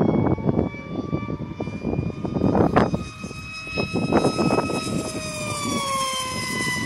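Radjet Ultra electric RC model plane flying past, its motor and propeller giving a steady high whine that falls in pitch about five seconds in. Gusts of wind buffet the microphone throughout.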